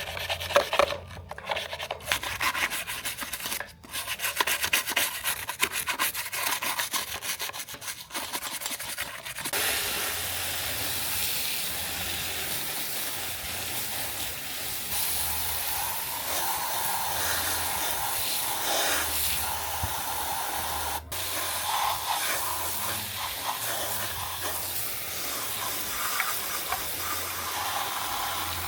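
Fast, even rubbing strokes like sanding or filing on a small part for roughly the first ten seconds, then a steady hiss with faint scraping running through it.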